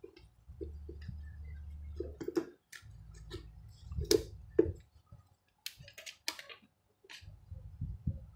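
Scattered sharp plastic clicks and knocks from handling a cordless drill battery and its charger, over a low hum that comes and goes.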